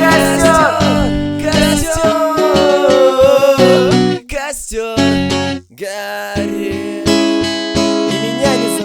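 Music: a guitar-backed song with a wavering melody line over sustained chords for the first few seconds. It then cuts out abruptly several times and starts again.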